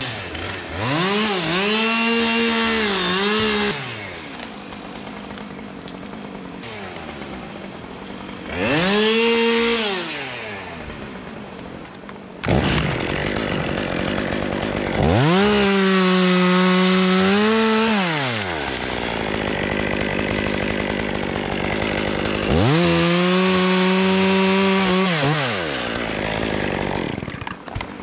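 Two-stroke chainsaw revved to full throttle four times, each burst lasting about one to three seconds, dropping back to idle between bursts.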